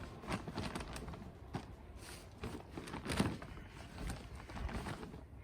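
Hands digging and rummaging through loose soil in a potato grow bag: irregular rustles and scrapes, the loudest about three seconds in.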